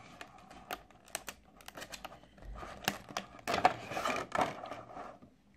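Clear plastic packaging being pried open and handled: scattered sharp clicks and crackles with rustling, the loudest crinkling about three and a half to four and a half seconds in.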